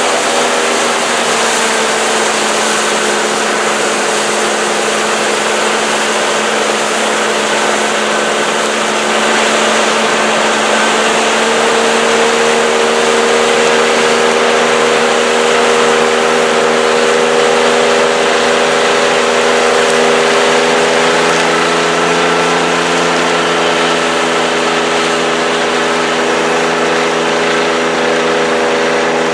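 Large John Deere combine harvesters running steadily while harvesting soybeans: a dense whirring machine noise over a steady engine hum whose pitch shifts a little a couple of times.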